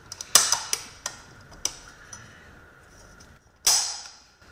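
Metal clicks and clinks from parts being handled in the steel E clutch drum of a ZF 6HP26 automatic transmission. Several sharp clicks come over the first two seconds, then a louder clink with a short ring about three and a half seconds in.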